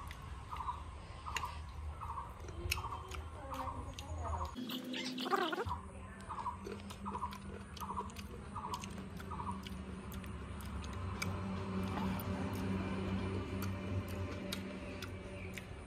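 A person chewing slices of raw green mango: many small crisp clicks of crunching. A short call repeats roughly every two-thirds of a second through the first half or so.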